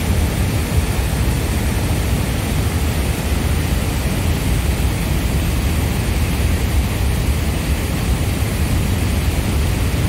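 Floodwater rushing over a reservoir dam's spillway: a steady, loud roar of water, heaviest in the low range, as the reservoir runs above its maximum capacity.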